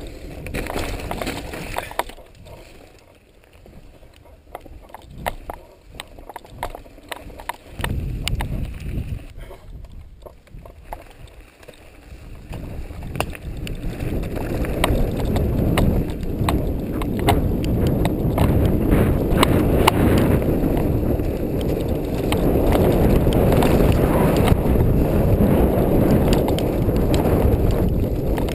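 Mountain bike riding over a dirt trail: tyres on dirt and rocks with frequent rattles and knocks from the bike and its camera boom mount. It is quieter for the first stretch, then a louder, steady rushing noise builds from about halfway as the bike picks up speed.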